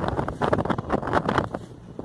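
Wind buffeting the microphone in uneven gusts on the open deck of a moving ferry, dropping off briefly near the end.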